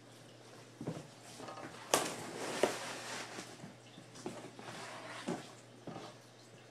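A cardboard shipping box being forced open and handled: a series of irregular knocks and scrapes with rustling between them, the sharpest knock about two seconds in.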